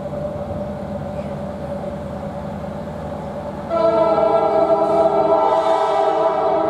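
Norfolk Southern GP38-2 diesel locomotive approaching with its engine running. About four seconds in, its horn sounds: a loud chord of several steady tones, held.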